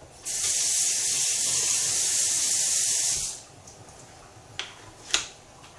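A loud, steady hiss that starts just after the beginning, lasts about three seconds and cuts off. A couple of faint clicks follow near the end.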